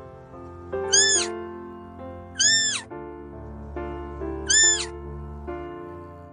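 A kitten meowing three times, short high calls that rise and fall in pitch, over background music.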